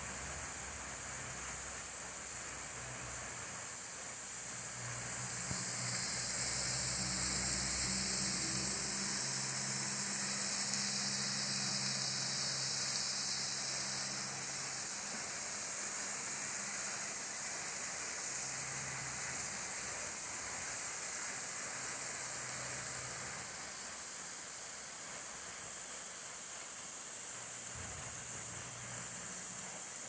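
Steady hissing rush of flowing water from a forest creek and waterfall, swelling about five seconds in and easing back after about ten seconds. A faint low hum sits underneath at times.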